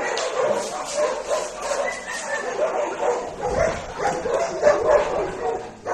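Dogs whining and yipping, with wavering high calls following one another almost without a break.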